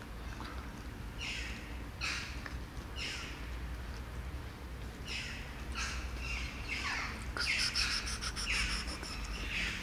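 Birds calling outside: short harsh calls that drop in pitch, repeated about once a second and crowding together in the second half.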